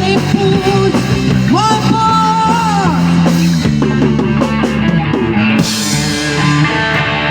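Rock band music with singing, including a long held note about one and a half seconds in. Near the end the cymbals drop out, leaving sustained guitar tones.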